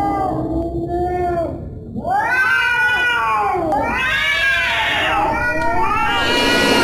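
Domestic cat caterwauling: a low, drawn-out moaning growl, then from about two seconds in a run of loud yowls, each rising and falling in pitch over about a second. A hiss-like noise joins near the end.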